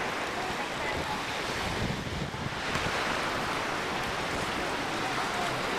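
Steady wind rushing and buffeting the camcorder microphone, mixed with the wash of low surf.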